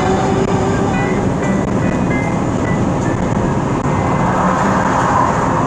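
Steady road and engine noise of a vehicle driving at highway speed.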